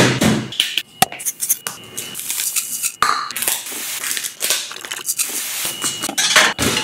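A quick run of kitchen prep sounds: packaging crinkling as a baking bag is torn open, sharp knocks on the counter, and a thick brownie mixture being worked in a plastic mixing bowl.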